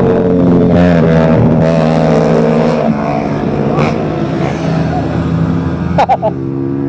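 Motorcycles riding past at speed, their engines rising and falling in pitch as they pass.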